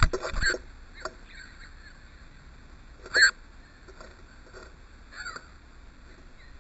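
Short arched bird calls: a couple at the start, a single louder call about three seconds in, and a fainter one around five seconds.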